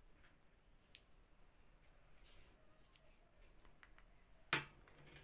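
Quiet handling of a plastic measuring spoon scooping turmeric powder and tipping it into a small plastic bowl: a few faint light clicks, then one sharper tap about four and a half seconds in.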